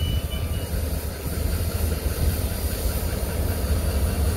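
Several diesel-electric locomotives idling, a steady low rumble with a faint hiss above it.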